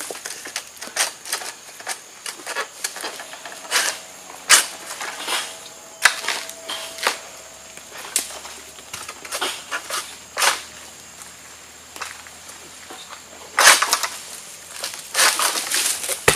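An egrek harvesting sickle (Palm King Long Ultra) on a long pole is hooked into an oil palm's crown and pulled to cut through a fruit bunch's fibrous stalk and frond bases. It makes irregular sharp cracks, snaps and scraping crackles, which bunch up thickly near the end.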